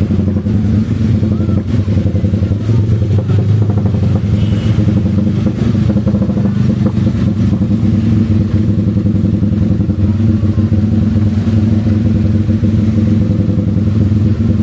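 Motorcycle engines running at a slow, steady pace in crawling traffic: a steady low drone.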